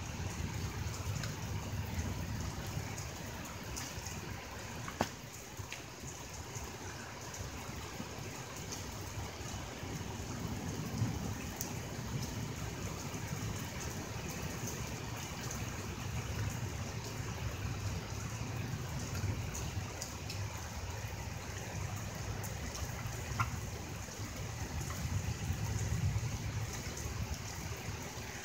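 Rain and gusty wind of a thunderstorm: a steady hiss over a low rumble that swells about ten seconds in and again near the end. A few sharp ticks are scattered through it.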